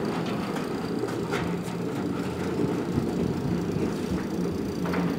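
Electric sliding gate opener's rack-and-pinion gear motor running steadily, driving a corrugated steel gate closed along its track, with a few light rattles and clicks along the way; a test run of the closing travel toward the closing limit switch.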